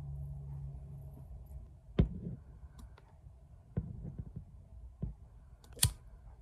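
A sharp knock on the work table, then scissors snipping through nylon knotting cord, then the click of a disposable lighter being struck near the end.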